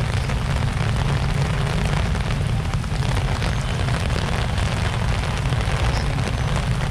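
Heavy typhoon rain pouring steadily on a wet street, a dense continuous hiss over a low rumble.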